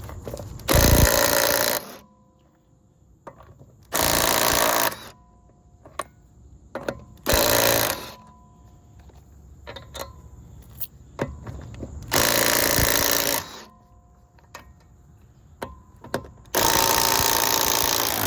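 Kobalt 24-volt brushless 1/2-inch drive cordless impact wrench hammering lug nuts on a car wheel, going around the wheel one nut at a time: five separate bursts of rapid impacting, each about a second long, with short pauses between them as it moves to the next nut.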